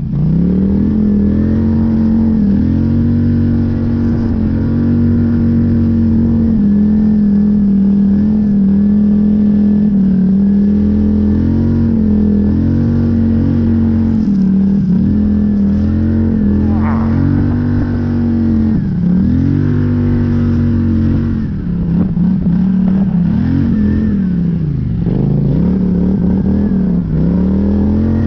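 Polaris Scrambler 850 ATV's twin-cylinder engine running hard under load while plowing through deep fresh snow. The engine speed holds steady, then dips and picks back up several times as the throttle is eased and reopened, most often in the second half.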